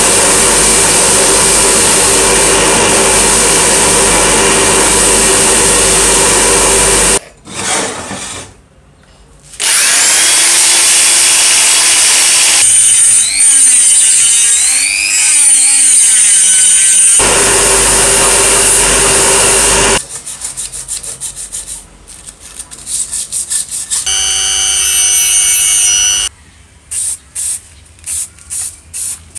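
A motor-driven wire wheel brushing rust and grime off metal parts, running steadily, in several stretches with short breaks between. In the middle, a handheld rotary tool with a small disc grinds the metal casting, its whine rising and falling in pitch. Near the end come several short on-and-off bursts.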